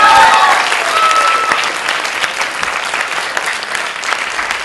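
Audience applauding, a dense run of hand claps, with a few voices calling out over it in the first second and a half; the clapping eases a little later on.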